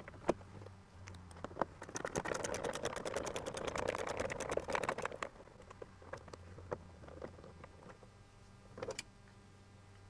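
A driver with a T25 bit backing out a grab-handle screw: a run of rapid, even clicking for about three seconds, with a few separate clicks before it and a short knock near the end.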